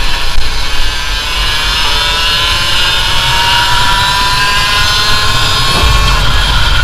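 Racing kart's Vortex ROK two-stroke engine at full throttle, its note rising steadily as the kart accelerates down the straight. Near the end the rising note breaks off and a low rumble takes over.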